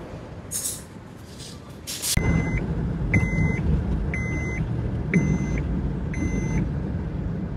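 Car driving, heard from inside the cabin: a low engine and road rumble that starts about two seconds in. Over it a short electronic beep sounds about once a second, five times.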